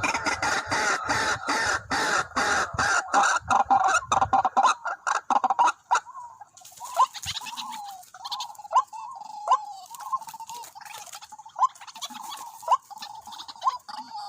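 White-breasted waterhens calling: for about six seconds a dense, rapid clicking rattle mixed with calls, then a series of short sharp clucking calls, roughly one or two a second.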